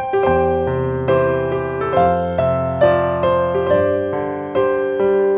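Background music: electric piano playing a gentle melody over sustained chords, a new note struck about every half second.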